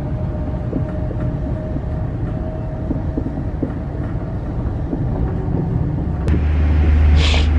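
Passenger train running on the rails, heard from inside the carriage: a steady low rumble with a faint even whine and a few light clicks. About six seconds in, the sound changes abruptly to a louder, deeper drone, with a short burst of hiss near the end.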